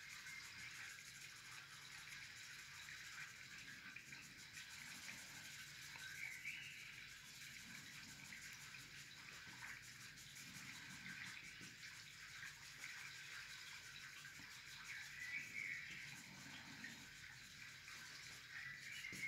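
Faint, uneven scratchy rubbing of a paper blending stump on drawing paper, spreading charcoal shading in short strokes.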